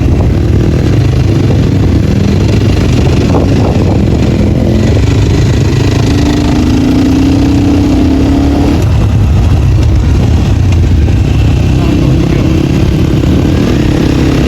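Dirt-bike engine running without its dB killer, loud and open-piped, revving up and down under offroad riding. The engine note climbs through the middle of the stretch and climbs again near the end.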